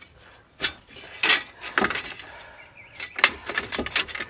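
Metal hand tools and hub parts being handled, a handful of sharp, irregularly spaced metallic clinks and knocks, during a front wheel bearing teardown.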